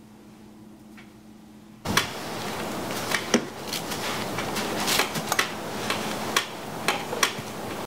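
Low room hum, then from about two seconds in a broom sweeping: bristles brushing over tile and along a sliding glass door's metal track, with scattered sharp clicks and knocks.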